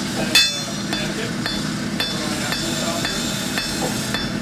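Blacksmith's hammer striking steel on an anvil: one loud ringing blow about half a second in, then lighter ringing strikes about twice a second over a steady background noise.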